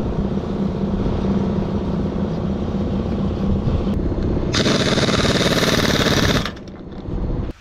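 A machine motor runs steadily with a low hum. A little past halfway a loud, harsh hissing grind breaks in for about two seconds, then cuts off sharply.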